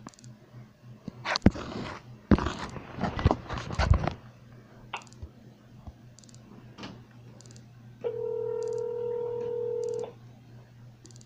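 A phone's ringback tone from its earpiece: one steady ring lasting about two seconds, about eight seconds in, meaning the call is ringing at the other end. Before it, a few loud knocks and rustles of the phone being handled.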